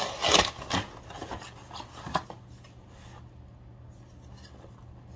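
A package being opened by hand: a run of rasping, rustling strokes over the first two seconds ending in one sharp one, then only faint handling.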